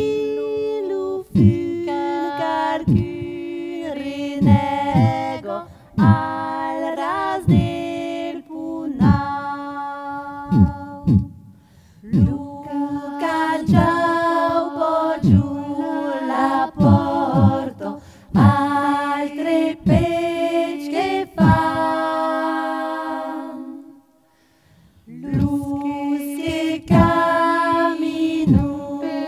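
Women's Occitan polyphonic singing, several voices over a held low drone, struck through with low drum beats about once or twice a second. The song breaks off briefly near the end and then starts again.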